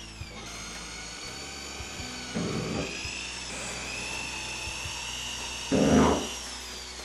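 Corded Makita drill with a 6mm tile bit running into a ceramic wall tile: a steady high-pitched motor whine, with two louder rough bursts about two and a half and six seconds in, the whine dropping in pitch as the drill slows near the end.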